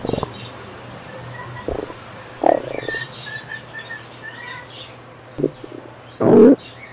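Stomach rumbling and gurgling in several short, bubbling growls, the longest and loudest near the end: the sign of a bad stomach turning toward an urgent need for the toilet.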